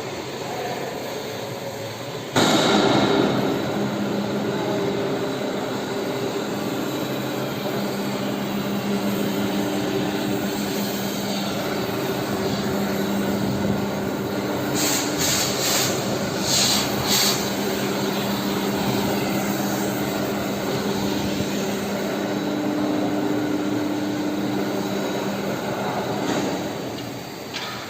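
Workshop machinery running steadily with a low hum, starting suddenly about two seconds in, with a few short hissing bursts midway.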